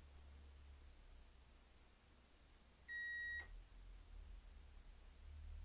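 Digital multimeter's continuity beeper giving one steady high beep of about half a second, about three seconds in, as its probes bridge two of a three-phase stator's yellow output wires: continuity between the windings, as a good stator should show.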